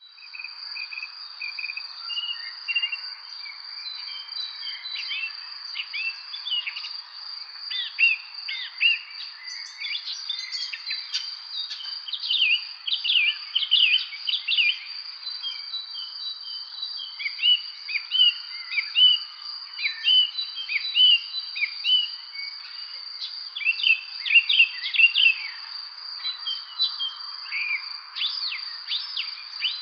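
Spring birds chirping with many short, quick notes, many of them sweeping downward, busiest around the middle and again near the end. Underneath runs a steady high-pitched insect trill.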